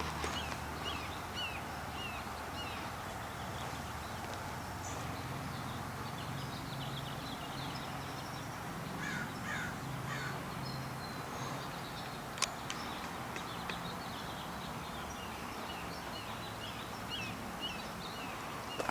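Crows cawing among the quick, repeated chirps of smaller birds, over a low steady hum of distant work noise. A single sharp click comes about two-thirds of the way in.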